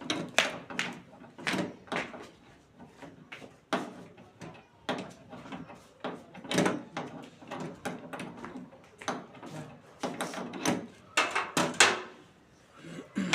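Irregular knocks, clacks and scrapes of a split air-conditioner's parts being handled and fitted by hand during installation, with a louder flurry of clacks near the end.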